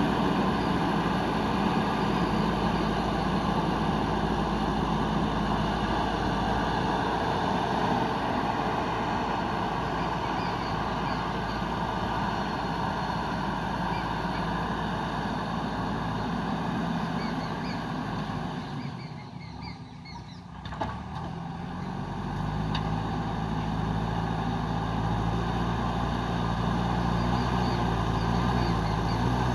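JCB 3DX backhoe loader's diesel engine running steadily as the machine works the ground. It fades for a couple of seconds about two-thirds of the way through, then comes back with a deeper hum.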